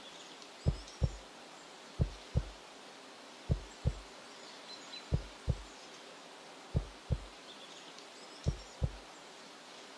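Slow heartbeat sound effect: deep paired thumps, lub-dub, repeating about every second and a half.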